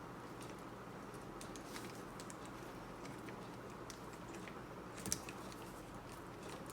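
Faint scattered clicks and light taps of small parts being handled, with one sharper click about five seconds in, over a steady low background hum.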